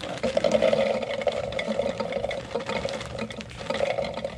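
Fresh cranberries poured from a bag into a container: a continuous rattle of many small berries falling and hitting, starting abruptly and stopping near the end.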